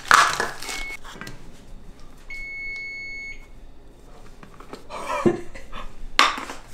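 Electronic beeping: a short beep about a second in, then one steady beep lasting about a second near the middle. Rustling handling noises at the start and near the end.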